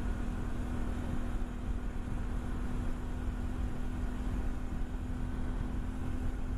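Honda Varadero 125's V-twin engine running at steady revs while the motorcycle cruises, its note holding one even pitch, under a heavy low wind rumble on the microphone.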